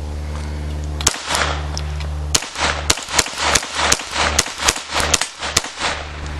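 .22 LR semi-automatic pistol firing: a single shot, then after a pause a fast string of a dozen or more shots a few tenths of a second apart.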